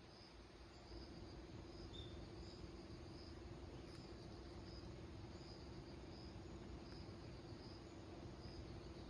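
Faint insect chirping: short high-pitched chirps repeating at an even rhythm, about one and a half a second, over a steady low hum.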